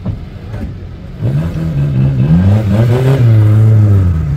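Off-road vehicle's engine revving hard, its pitch climbing and dipping as it comes on load about a second in, loudest shortly before the end and then easing back.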